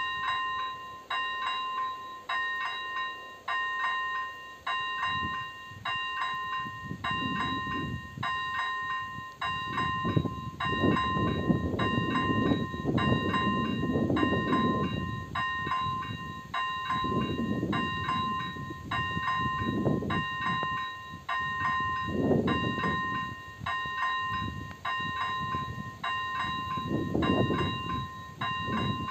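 AŽD 97 level-crossing warning signal's electronic bell starting up and ringing on and on, a bright ding repeating at a quick, even rhythm, the warning that a train is approaching. Irregular swells of low rumbling come and go underneath.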